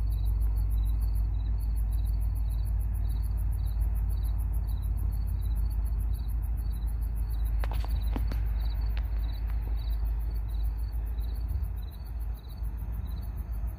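Crickets chirping in a steady, regular pulse, over a constant low rumble.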